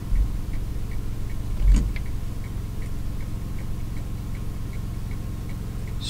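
Solar-powered novelty figure ticking faintly and evenly, about two to three ticks a second, over a steady low hum. A single knock sounds a little under two seconds in.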